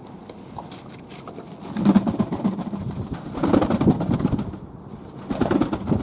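Fantail pigeons cooing in three bouts, mixed with the flutter of wings flapping as the birds bathe in a tub of water.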